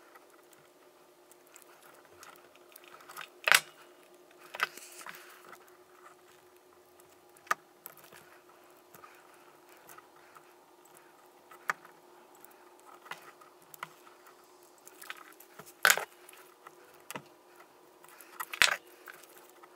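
Hand tools on a small wire terminal: sharp clicks and snaps every few seconds as a crimping tool and pliers close on the connector, with light handling of the wires in between. A faint steady hum runs underneath.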